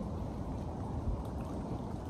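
Small waves lapping and splashing against shoreline rocks, a steady watery wash with no single loud event.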